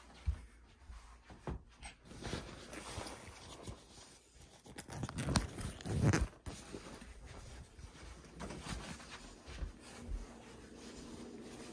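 Rustling of fabric and handling noise on a hand-held phone, with scattered knocks and soft footsteps as someone moves about; the loudest stretch of rustling and knocks comes about five to six seconds in.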